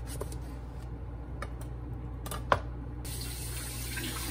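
A few sharp knocks of a kitchen knife on a cutting board as something is cut in half, the loudest about two and a half seconds in, over a steady low hum. A hiss starts suddenly about three seconds in.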